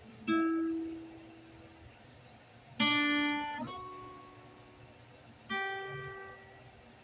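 Acoustic guitar played slowly: single chords struck about every two and a half seconds, each left to ring out and fade, with a second chord following closely on the middle one.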